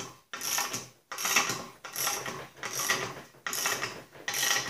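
A ratchet wrench clicks in repeated strokes, roughly one a second. It is tightening the nut on a threaded-rod puller that draws a bushing into a Snapper rear-engine rider's fender.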